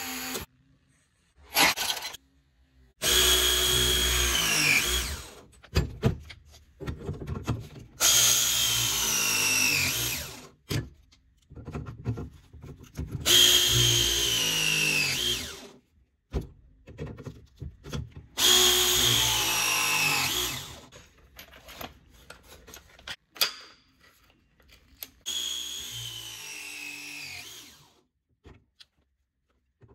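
Milwaukee M12 battery press tool crimping copper press fittings, five presses in turn. Each press is a motor whine of about two seconds that drops in pitch as the jaw closes on the fitting, then cuts off. Short clicks and knocks come between presses as the jaw is set on the next fitting.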